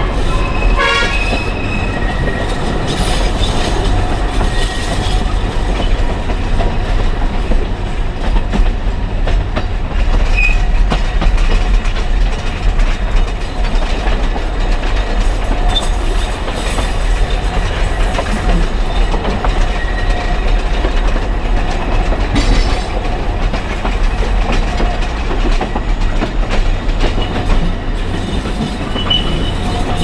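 Alishan Forest Railway narrow-gauge train running, heard from inside a passenger car: a steady rumble with wheels clacking over the rails and faint wheel squeals now and then.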